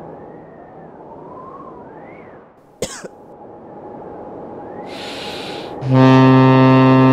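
A loud, steady, low horn blast, foghorn-like, starts about six seconds in, right after a short hiss. Earlier come soft gliding whistle tones and a single sharp click.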